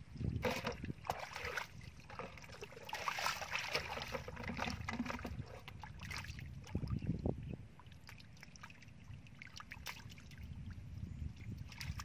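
Hands sloshing and splashing in shallow muddy water while groping through the mud for fish, in irregular bursts.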